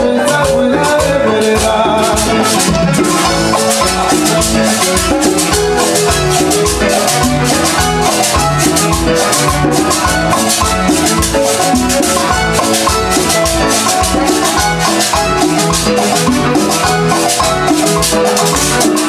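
Live salsa orchestra playing dance music with a steady, even beat.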